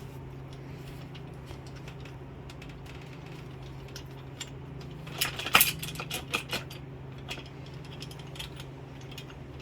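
Small metal transmission valve-body parts and tools clinking and tapping as they are handled, with a burst of sharper clicks and clatter about five seconds in, over a steady low hum.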